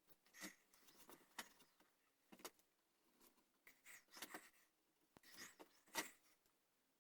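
Hand carving tool cutting and scraping the wooden gunstock in faint, irregular short strokes, the sharpest one about six seconds in.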